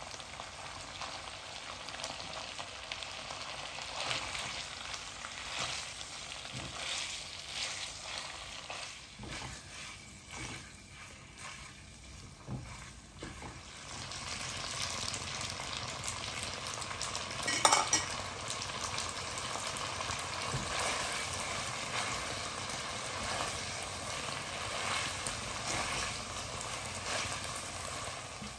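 Beef, chicken and red peppers sizzling in oil in a nonstick wok, stirred with scraping strokes. About halfway through, the sizzle grows louder as spaghetti is tossed in with the meat, and a sharp knock comes once near the middle of that stretch.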